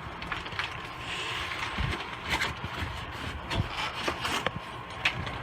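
Cardboard box being handled and opened: scraping and rubbing of cardboard with scattered knocks.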